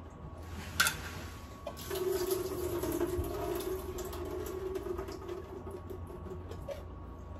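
Kitchen faucet running water for about three and a half seconds, with a steady low hum, preceded by a sharp click about a second in.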